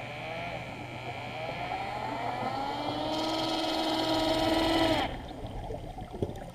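A boat motor heard underwater. Its hum rises in pitch for a few seconds, holds steady, then cuts off suddenly about five seconds in, leaving faint underwater clicks.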